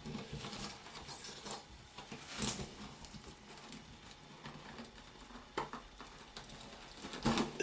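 Faint scraping and small clicks of a screwdriver gently prying glued neodymium magnets out of a ceiling fan motor, with a few sharper clicks, the loudest near the end.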